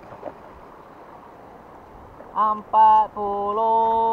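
Low outdoor background noise for a couple of seconds, then a voice singing a few long held notes that step from one pitch to the next.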